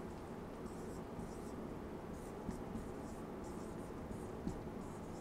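Marker pen writing on a whiteboard: a run of faint, short strokes.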